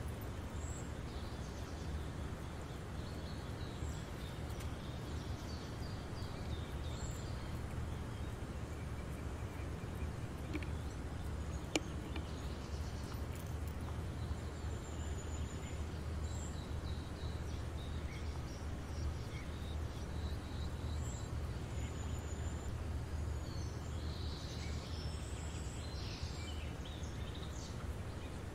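Steady low outdoor rumble with small birds chirping on and off, and a single sharp click about twelve seconds in.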